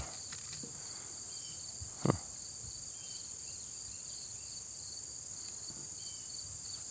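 Steady, high-pitched insect chorus, with a second, pulsing trill a little lower in pitch. There is one brief knock about two seconds in.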